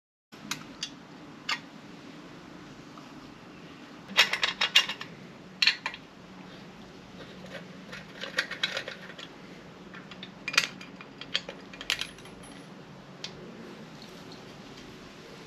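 Metal clicks, clinks and short rattles of tools and bolts as the bolts holding the end cap on a Benelli BN125's exhaust silencer are worked loose. The clinks come singly and in a quick rattling run about four seconds in.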